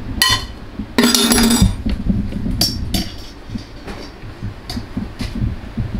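A serving utensil clinking and scraping against the metal inner pot of a pressure cooker while braised short ribs are moved about: several sharp knocks, with a louder ringing scrape about a second in.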